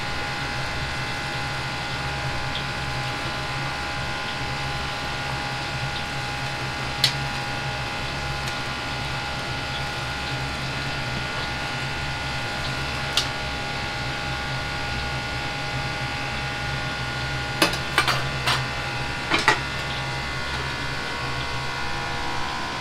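Steady hum of a commercial kitchen's burners and exhaust fan, with sharp clinks of a metal ladle against a wok: single clinks about seven and thirteen seconds in, then a quick run of four or five near the end.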